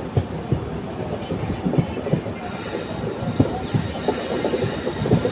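Passenger express train running, heard from aboard: irregular knocking of the wheels over the rails throughout. About halfway through, a steady high-pitched wheel squeal sets in and holds.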